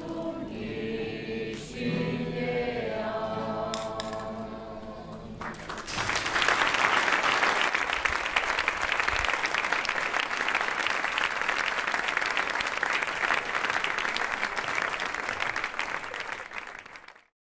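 A crowd singing together; the song ends about five seconds in and gives way to applause, which stops suddenly near the end.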